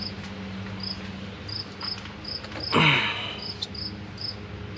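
A cricket chirping steadily, short high chirps about twice a second, over a steady low hum. About three seconds in, a brief, louder sound with a falling pitch.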